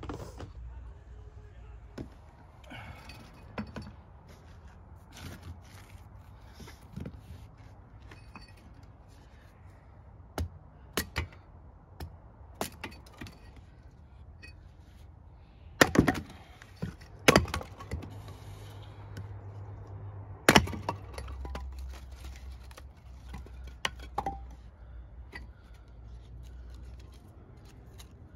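Irregular sharp cracks and knocks of firewood being broken up for a campfire. The loudest strikes come in the middle, a second or so apart.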